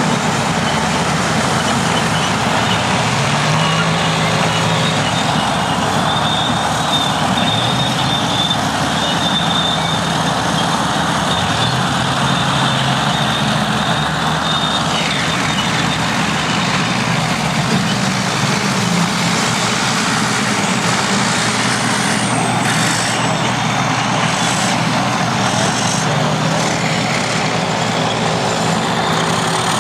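Several vintage diesel crawler bulldozers and cable-operated scrapers running and working together, a steady dense engine noise whose pitch shifts now and then as the machines are worked, with a thin high whine that slides down and stops about halfway through and a few sharp knocks in the second half.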